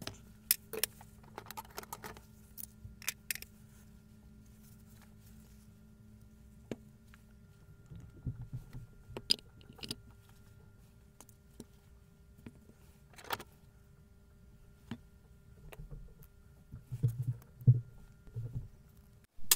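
Metal parts and hand tools clinking and knocking as the gear housing of a Hilti TE 700 breaker is handled and taken apart, in scattered irregular taps with a few heavier bumps near the end.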